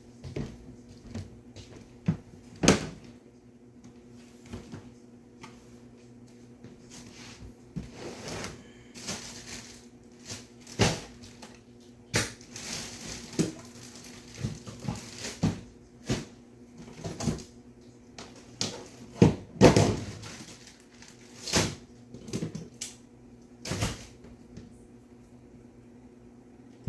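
Scattered knocks, clunks and rustling of objects being handled and moved about, as when rummaging for a tool, over a steady low hum.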